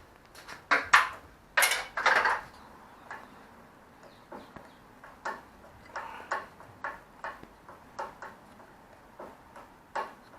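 Metal hand tools working on brake line fittings: a few loud clicks and short scrapes in the first two seconds or so, then a run of light metallic clicks at about two a second.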